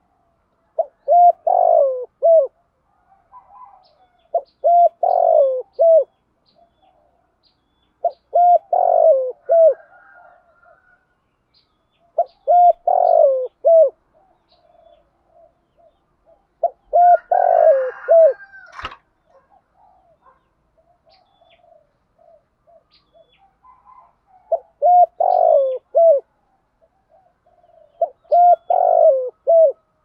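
Spotted dove cooing the 'thúc gù' call: a short phrase of three or four notes, repeated about every four seconds, seven phrases with a longer pause after the fifth. A single sharp click just after the fifth phrase.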